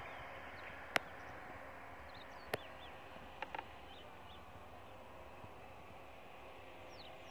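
Distant earthmoving machinery running as a faint, steady hum, with small birds chirping now and then. Two sharp clicks sound about one and two and a half seconds in.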